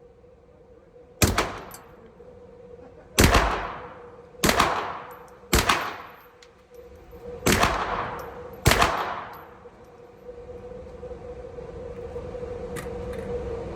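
Six single shots from a Grand Power Stribog SP9A3 9mm carbine, fired semi-automatically at uneven intervals of one to two seconds. Each shot rings out and decays over about a second. After the last shot a steady hum slowly grows louder.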